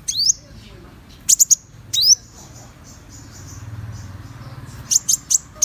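Konin, a small sunbird, calling in short groups of sharp, very high chirps and quick rising notes: one near the start, a cluster after about a second, another rising note at about two seconds, and a fast run of chirps near the end.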